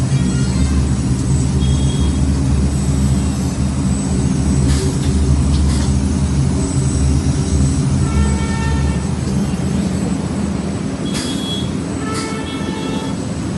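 Blade-sharpening machine running with a steady low hum. Twice, about eight and twelve seconds in, brief high-pitched ringing tones rise over it, with a few short scrapes between.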